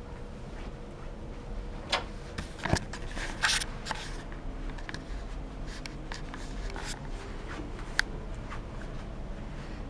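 A door being opened: clicks and knocks of the handle and latch about two to three and a half seconds in, then light rustling and a single sharp click near the end.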